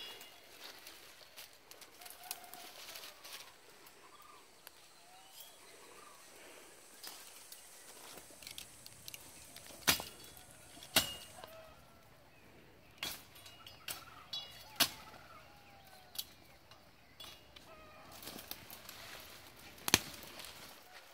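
Someone moving through dry scrub, with dry leaves and twigs rustling and crunching, and a handful of sharp cracks of breaking branches, the loudest about ten seconds in, again a second later and near the end.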